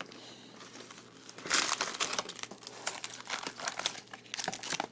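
Plastic wrappers of baseball card packs crinkling as the packs are handled and pulled out of a hobby box, with one loud burst of crinkling about a second and a half in and lighter crackles either side.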